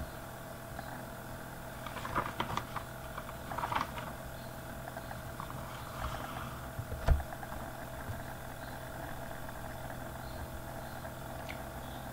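A faint, steady hum, with a few small clicks between about two and four seconds in and a single knock about seven seconds in.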